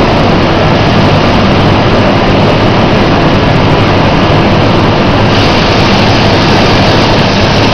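Feed bagging and packing machinery running: a loud, steady mechanical drone with a low hum underneath.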